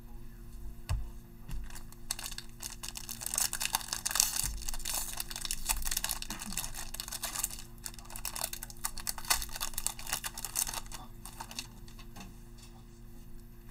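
Foil wrapper of a Mosaic football card pack being torn open and crinkled: a dense papery crackle for several seconds that thins out to light handling of the cards near the end.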